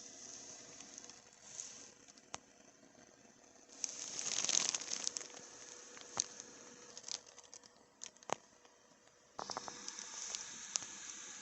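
Packaging being handled: rustling and crinkling, loudest about four seconds in and again near the end, with a few sharp clicks and taps between.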